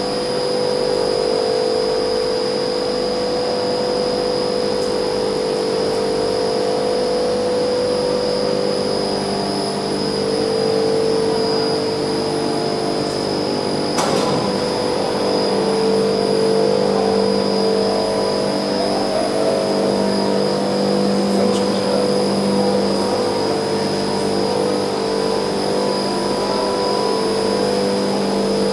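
Reversible heat pump running under test, its compressor and fans giving a steady machine hum made of several constant tones over a hiss, with a faint steady high whine. A single sharp click about halfway through, after which the hum shifts slightly.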